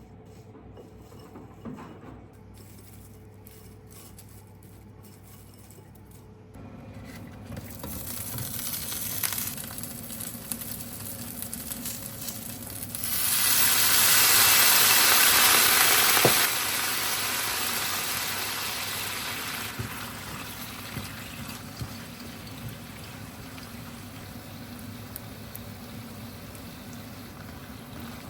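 Food sizzling in a hot frying pan. The sizzling builds and swells loudly about halfway through, then settles into a steady hiss that slowly fades. A few small utensil clicks come early on.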